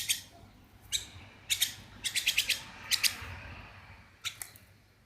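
A bird chirping in short, sharp high-pitched calls that come in quick clusters every half second to a second, dying away about four seconds in.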